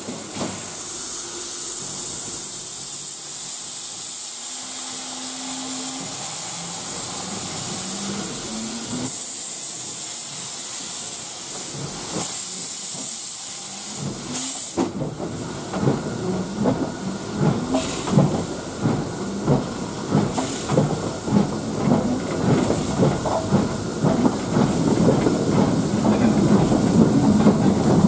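Steam hissing from the LSWR 0298 Class Beattie well tank locomotive, then from about halfway the engine's exhaust beats setting in, getting louder and quicker as it works.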